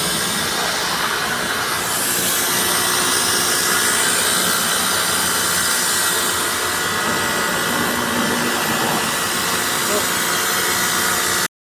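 Steady, loud hissing rush, as of a jet of water or air during air-conditioner servicing, with a faint high steady tone in it; it cuts off suddenly near the end.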